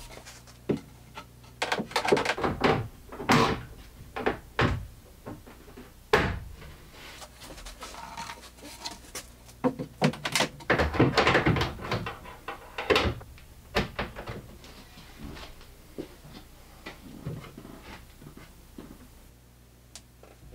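Birch plywood cabinet doors being handled and hung on concealed hinges: a run of wooden knocks, clunks and metal hinge clicks, bunched in two busy stretches, a few seconds in and again about halfway, with one sharp knock between them.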